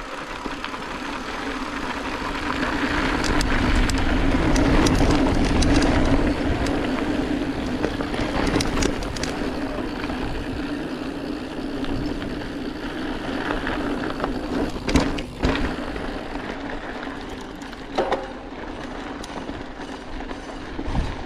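Mountain bike riding over a dirt trail: wind rush and tyre rumble build over the first few seconds and then ease off, under a steady hum. Several sharp knocks from the bike going over bumps come in the second half.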